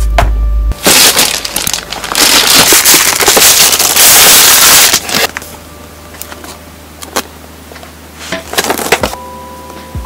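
Clear plastic bag crinkling and rustling loudly as it is pulled off a cardboard keyboard box, for about four seconds. It then gives way to quieter handling of the box, with a few light taps.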